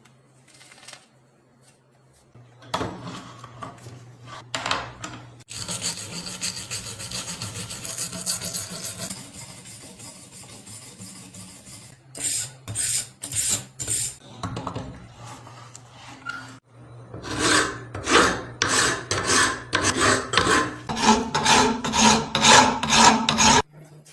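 A hand tool scraping in repeated back-and-forth strokes, like filing or rasping. The strokes come in bursts, about two a second near the end, and stop abruptly.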